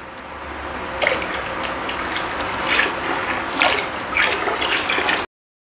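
Yeast starter poured from a glass jar into a bucket of wort: a steady stream of liquid splashing into liquid, with several louder splashes. It cuts off suddenly near the end.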